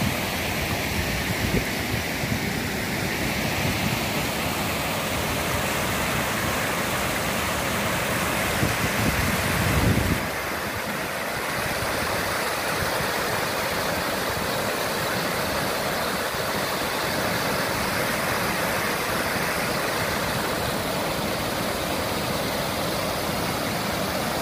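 River water rushing steadily over a low check dam and down foamy rapids. A low, uneven rumble sits under the water noise for the first ten seconds and stops suddenly.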